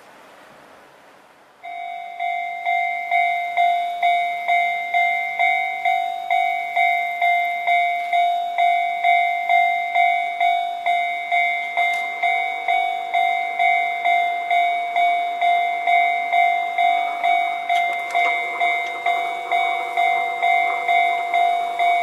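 Japanese railway level-crossing alarm starting up about two seconds in: an electronic warning bell ringing in a steady, even beat of about two strokes a second, signalling that a train is approaching and the barriers are coming down.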